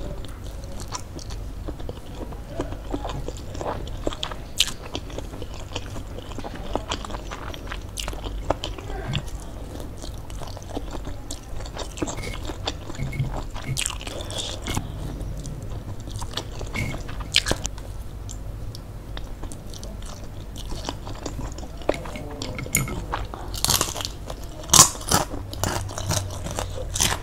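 Close-up eating sounds of a person chewing and slurping noodles, with many small wet mouth clicks. Near the end come louder, sharper crunches as a fried wonton is bitten.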